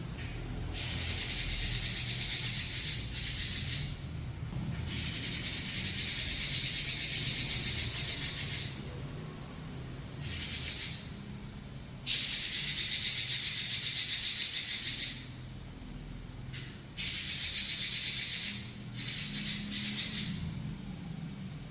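Pekin robin (red-billed leiothrix) singing long, rapid rattling trills, each lasting one to four seconds with short pauses between, over a low steady hum.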